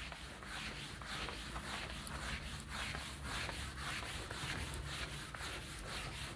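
Whiteboard eraser rubbing back and forth across a whiteboard, a faint, even run of quick wiping strokes as the board is erased.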